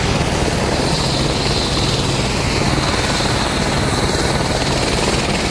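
Helicopter running close by: a steady, loud rotor beat over continuous engine noise.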